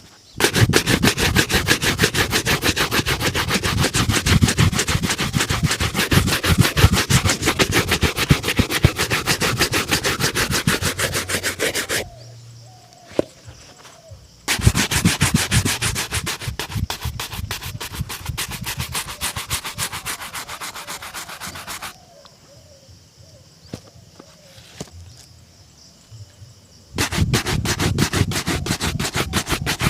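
Rapid back-and-forth shoe-polishing strokes rubbing over a shoe, in three long bouts that stop about 12 and 22 seconds in before starting again.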